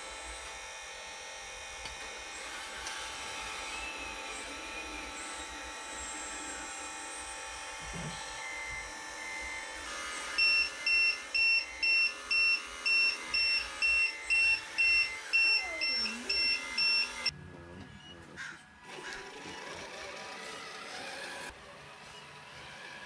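RC model's low-voltage battery alarm beeping at about two beeps a second, starting about ten seconds in and stopping about seven seconds later, over the steady whine of the scale RC excavator's motors.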